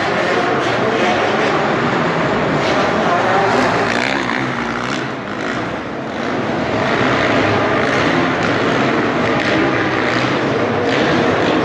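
Small off-road engines revving and easing off as a youth quad bike laps a dirt track inside a large hall, the engine note rising and falling with the throttle and dropping briefly about five seconds in.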